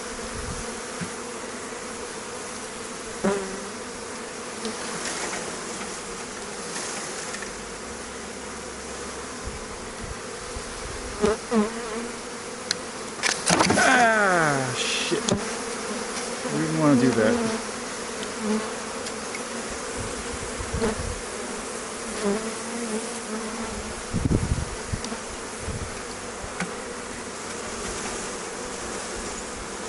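A mass of honey bees buzzing steadily as a package colony is brushed into a hive body. Several times single bees buzz louder close by, some dropping in pitch as they pass. There is a low thud near the end.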